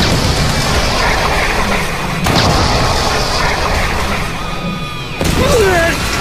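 Sound effect of a huge fire-breath blast: a continuous rumbling explosion, with a fresh, louder burst about two seconds in and another about five seconds in. A brief cry comes near the end.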